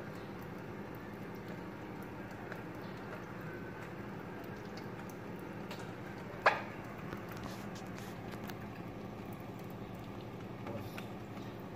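Melted butter in a wok over a low flame, faintly crackling under a steady low hum, while thick cream is squeezed from a carton into it; one sharp click about six and a half seconds in.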